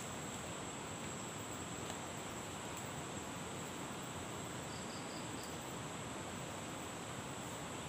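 Steady high-pitched insect drone over an even hiss of outdoor background noise, with four short faint high chirps about five seconds in.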